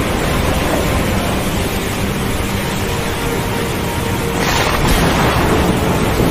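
Thunderstorm ambience: a continuous low rumble of thunder under a steady rushing noise, with a brief brighter rush about four and a half seconds in. Faint sustained tones of soft music sit underneath.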